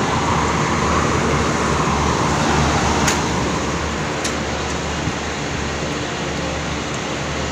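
Condenser fans of a Koppel 20TR air-conditioning condensing unit running: a steady rush of air over a low motor hum, with two brief clicks about three and four seconds in. One fan motor is turning in reverse, which the technician puts down to a failed run capacitor.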